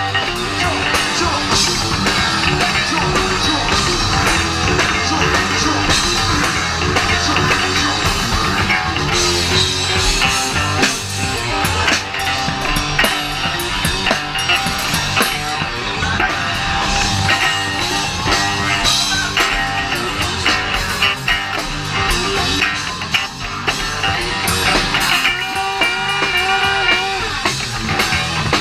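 A rock band playing live and loud: guitar over bass and drum kit.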